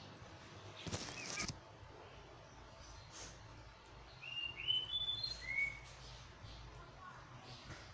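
A small bird chirping: a quick run of five or six short, rising chirps about halfway through, over a faint low hum. A brief noise, the loudest thing apart from the chirps, comes about a second in.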